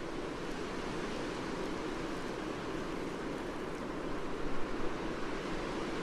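Blizzard wind blowing steadily, with snow and ice hitting a window; it swells briefly about four and a half seconds in.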